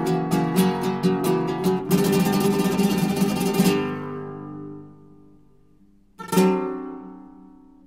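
Background music: acoustic guitar strummed fast and rhythmically, then a rapid flurry of strums that rings out and fades, with a single chord struck about six seconds in and left to ring.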